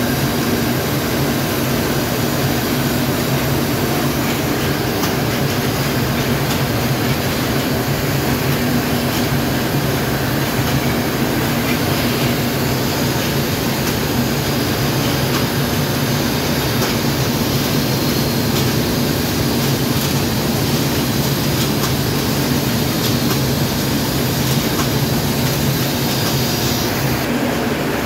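Steady, loud drone of a Saurer Zinser Impact 72XL ring spinning machine and the mill machinery around it running, with a constant low hum underneath.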